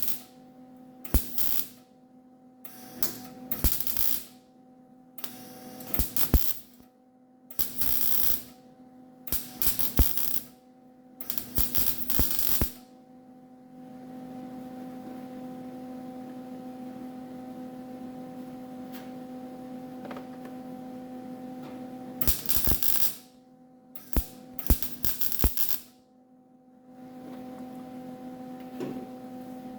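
Small wire-feed MIG welder laying short tacks one at a time, each a brief burst of arc lasting under a second: about ten in quick succession, a pause, then about four more. Short tacks like these fill the molding holes in a sheet-metal fender without burning through. A steady electrical hum runs under it and fills the pause.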